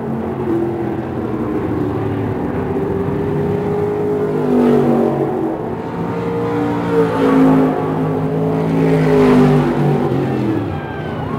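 Several dirt-track stock car V8 engines running at racing speed around the oval, with several engine notes overlapping and each rising and falling in pitch as the cars accelerate and back off.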